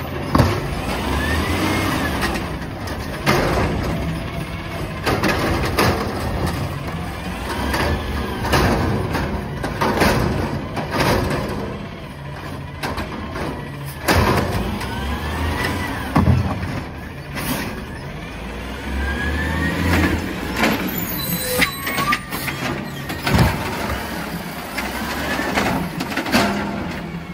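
Natural-gas automated side-loader garbage truck working its lifting arm through several cart dumps: the engine revs up in rising sweeps to drive the hydraulics, with repeated sharp bangs and clanks as carts are gripped, tipped into the hopper and set back down, and air hisses.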